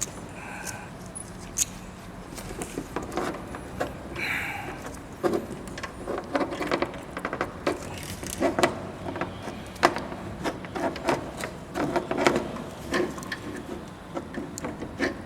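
Clicking, rattling and knocking of hands working a stiff wiring plug and plastic parts off a car's H4 halogen headlight bulb, in irregular bursts of short clicks.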